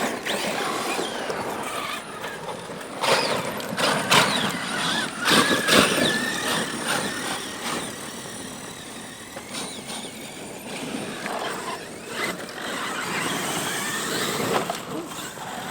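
Electric RC bash trucks running, their motors whining up and down in pitch as they accelerate and let off. Several loud thumps come between about three and six seconds in.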